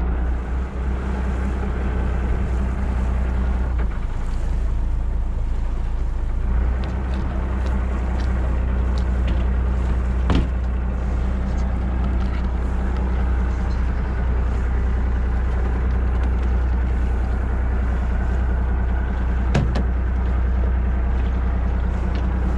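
A fishing boat's engine running steadily as the boat pulls up alongside, with a deep, even hum. Two sharp knocks stand out, one about halfway through and one near the end.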